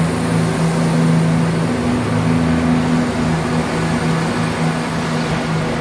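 ScotRail diesel multiple unit's engines running, a steady low drone with a constant hum and no change in pitch.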